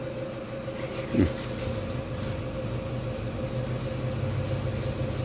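Steady low mechanical hum with a constant faint tone over it. About a second in, a brief pitched sound falls in pitch.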